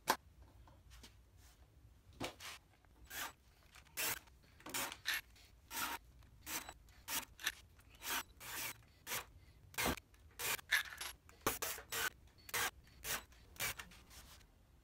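Cordless drill boring holes into a laminated-wood and melamine form: a string of short bursts of cutting noise, about two or three a second.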